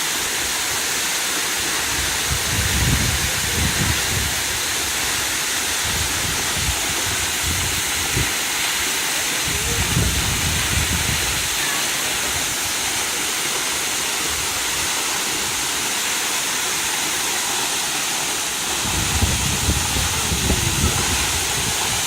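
Waterfall rushing, a loud, steady, even hiss of falling water. A low rumble swells and fades three times.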